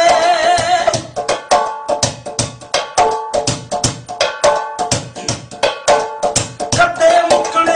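Fast hand percussion, fingers and palms striking an object held in the lap in a quick, dense rhythm of sharp strokes, with some pitched ringing under the strikes.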